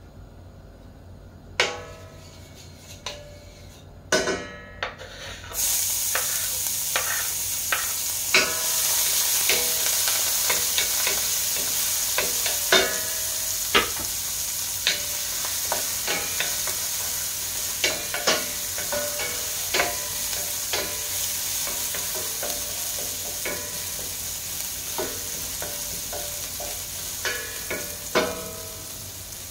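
Chopped garlic goes into hot olive oil in a stainless steel frying pan about five seconds in and starts a sizzle that slowly eases off. A wooden spoon knocks and scrapes against the pan as the garlic is stirred.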